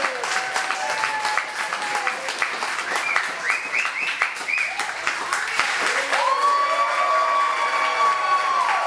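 Audience applauding, with voices calling out over the clapping. A cluster of short rising whoops comes about three to four seconds in, and one long held call starts about six seconds in.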